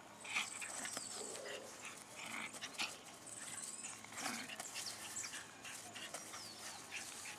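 Yorkshire terrier tugging hard on a rope toy, making short, irregular dog sounds as she grips and pulls.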